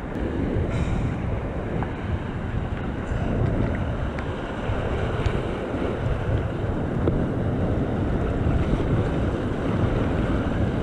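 Wind buffeting the microphone of a camera riding on a sea kayak, over the steady rush of breaking surf and whitewater around the hull.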